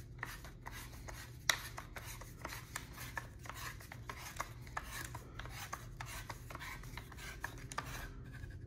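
Buffer tube being screwed by hand into the threaded stock adapter of a Citadel Boss-25 12-gauge shotgun. The threads and the turning stock give irregular scraping and rubbing with small clicks, and one sharper click about a second and a half in.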